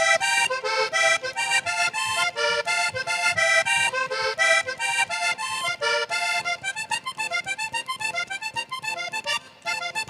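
Button accordion playing a fast vallenato merengue on its own, in quick runs of short, clipped notes.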